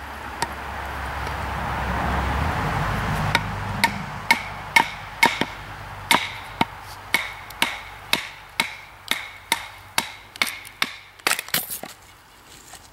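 Batoning: a wooden club strikes the spine of a fixed-blade knife about twice a second, driving the blade down through a white-barked log, with a short ring after each knock. The knocks stop near the end, once the log splits. A rushing noise comes before the first knock.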